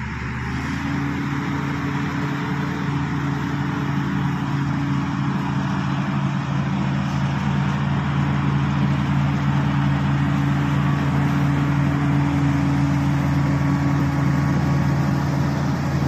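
Shantui SD16 crawler bulldozer's diesel engine running steadily under load as the blade pushes soil, one constant low drone that grows gradually louder as the machine comes closer.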